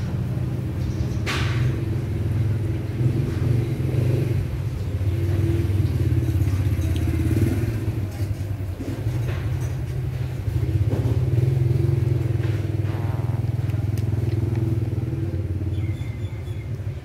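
A steady, low motor rumble runs throughout.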